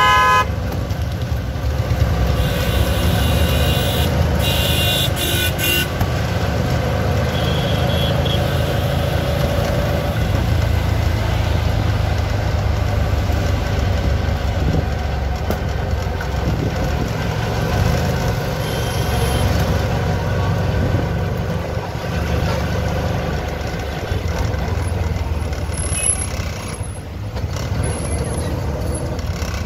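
Auto-rickshaw engine running steadily under way, heard from the open passenger seat with road and traffic noise around it. Short horn toots from nearby traffic come now and then, the busiest stretch a few seconds in.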